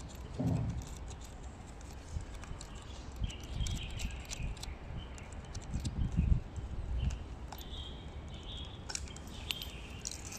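Small clicks and light rattles of battery-analyzer test leads and clip clamps being handled, with short faint chirps now and then.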